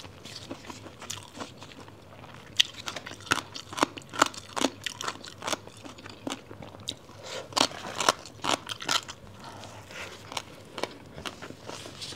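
Close-miked crunchy chewing of spicy shredded papaya and a big flatbread wrap: irregular crisp crunches, loudest about two and a half seconds and eight seconds in.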